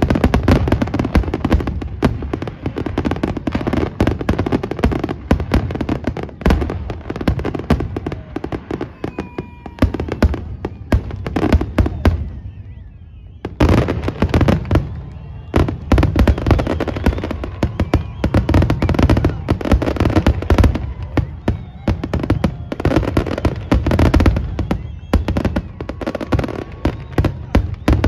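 A fireworks display: a dense barrage of shells bursting in rapid, overlapping bangs and crackle. The barrage eases briefly a little under halfway through, then resumes just as thick.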